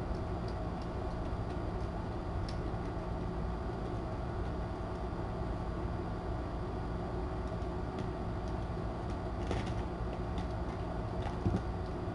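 Steady low hum and hiss of room noise, with scattered faint clicks and light scuffs from kittens playing around a sisal scratching post, a few more of them bunched toward the end.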